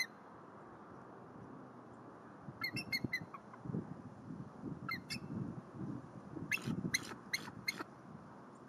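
Bald eagle giving short runs of high, piping chitter calls: four or five quick notes about three seconds in, a single note near five seconds, and four more near seven seconds, with low rustling between them.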